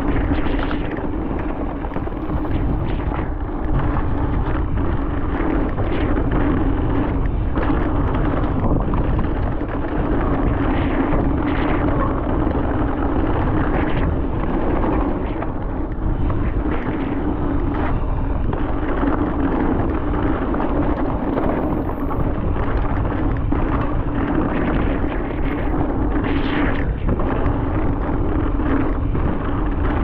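Specialized Stumpjumper mountain bike descending a dirt trail at speed, recorded on a bike- or rider-mounted action camera: wind buffeting the microphone and tyres rumbling over the ground, with a steady hum and frequent knocks and rattles as the bike hits bumps.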